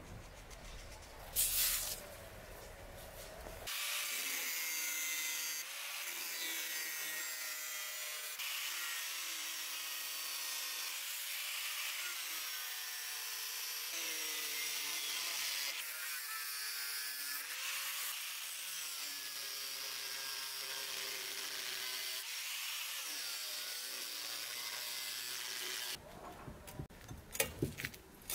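Angle grinder with a thin cut-off disc cutting through an old steel circular saw blade, throwing sparks. Its whine wavers up and down in pitch as the disc works through the cut. It starts about four seconds in and stops a couple of seconds before the end, with a brief knock near the start and a few short clinks as the cut steel is handled near the end.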